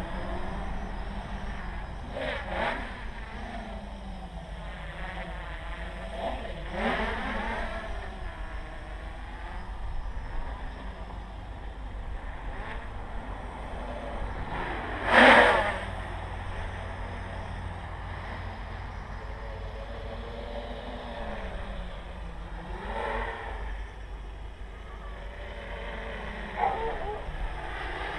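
Quadcopter motors and propellers whining, their pitch rising and falling as the throttle changes, over a steady low rumble. There is a short, loud rushing burst about fifteen seconds in.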